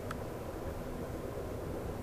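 Steady rumble of a moving passenger train, its wheels running on the rails, heard from inside the car, with one brief high click just after the start.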